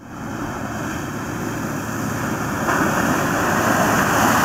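Off-road 4x4 driving through a water-filled ditch: its engine running under load while the tyres throw up water, a steady rush of splashing that gets louder a little past the middle as the vehicle comes close.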